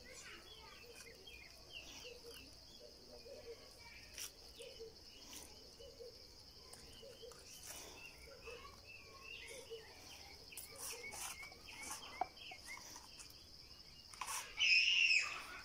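Outdoor ambience: a steady high insect drone with scattered bird chirps and a few faint clicks, and one louder call near the end.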